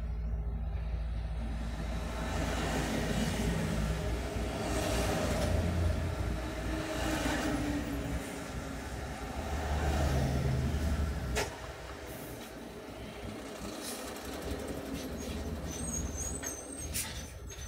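Heavy diesel trucks driving past close by, their engine noise swelling as each one passes, then a sharp click about eleven seconds in and a short hiss near the end.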